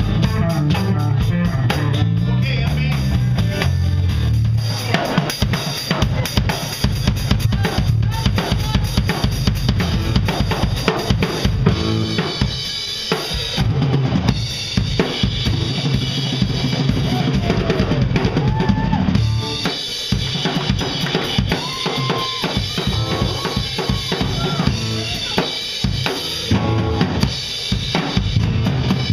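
Live band playing an instrumental passage, with the drum kit's kick and snare strikes to the fore. Electric bass notes are heaviest in the first few seconds.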